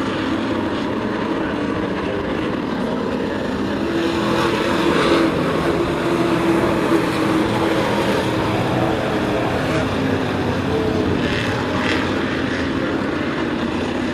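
Several sport-truck race engines running hard at speed around an asphalt oval, a continuous engine drone whose pitch shifts as trucks pass.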